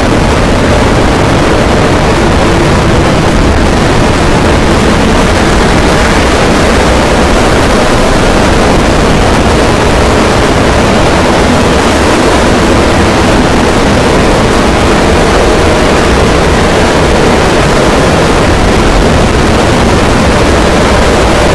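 Harsh noise music: a dense, distorted wall of noise at a loud, constant level, filling everything from a deep rumble to a high hiss, without pause or change.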